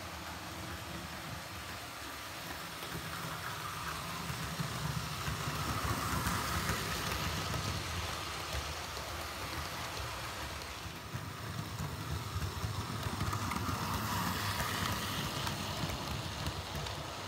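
Hornby OO gauge model train running on sectional track laid on a tiled floor: a steady clicking rattle of wheels over the rails and rail joints. It gets louder twice as the coaches pass close by.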